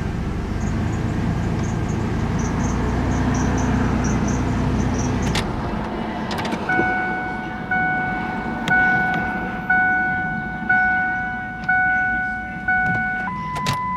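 A Ford's warning chime dinging about once a second, with a key in the ignition while the key is being turned to on, then a steadier single tone just before the end. For the first several seconds, before the chime starts, a steady low rumble is heard, followed by a couple of clicks.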